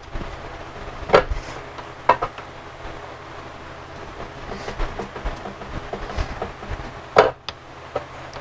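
Steel pry bar and screwdriver clinking and scraping against an aluminium engine timing cover as it is pried off its locating pin, with scattered sharp metal knocks, the loudest about a second in and about seven seconds in, over a faint steady hum.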